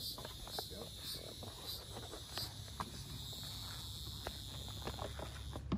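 Insects droning steadily in the woods, a high buzz pulsing about twice a second, which cuts off just before the end. Faint scattered clicks and knocks run under it.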